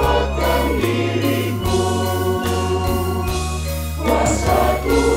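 Mixed-voice church choir of men and women singing a hymn in parts over an instrumental accompaniment with steady low bass notes. A long held chord gives way to a new sung phrase about four seconds in.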